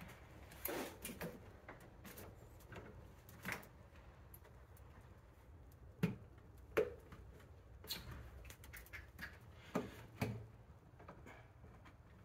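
Scattered light clicks, knocks and rubbing as a rubber air intake hose and its hose clamps are worked by hand onto an engine's throttle body, with a few sharper knocks in the second half.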